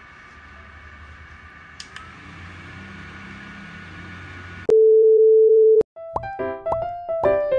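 Inozen i-Cooler CAT neckband fan running with a steady whir and a thin high whine, with a light click about two seconds in. Near the five-second mark a loud, steady electronic beep sounds for about a second, and then plucked, piano-like music notes start.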